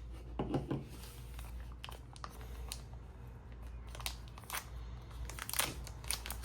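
Unboxing packaging crinkling and rustling as it is handled, with scattered light clicks.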